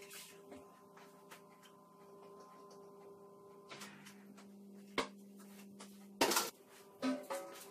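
Metal baking tray being lifted and set down over a faint steady hum: a light knock about five seconds in, then louder clatters about six and seven seconds in, the last with a brief metallic ring.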